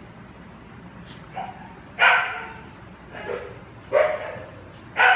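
Dog barking in short single barks about a second apart, the loudest about two and four seconds in.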